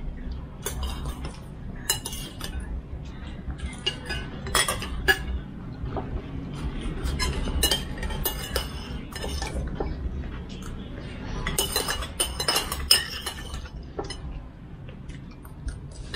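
Tableware clinking through a shared meal: spoons and other cutlery tap against bowls and plates in irregular, sharp clinks, with a steady low hum underneath.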